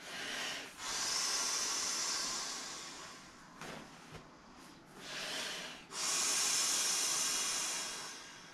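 A person blowing up an Intex Jumbo Jet inflatable airplane by mouth: breathy exhales rushing into the valve, two long blows of about two seconds each with shorter breaths between.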